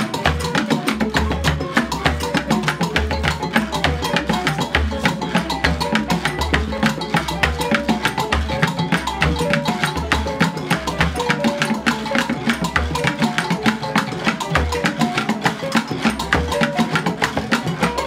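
West African percussion ensemble playing a fast, steady rhythm. A large calabash floats upside down in a basin of water and is struck with a stick as a water drum, giving deep, regular booming beats under dense, rapid wooden clicking and rattling from gourd rattles and hand-held percussion.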